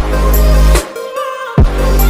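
Electronic dance music with a heavy, sustained bass line and sharp drum hits, one at the start and another about a second and a half in.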